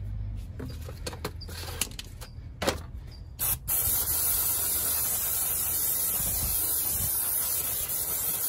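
Aerosol can of brake cleaner spraying onto a rear drum brake assembly: a short first burst about three and a half seconds in, then a steady, loud hiss. Before it, a few light clicks and knocks.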